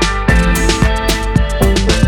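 Background music with a steady beat: an upbeat track with drums and pitched instruments.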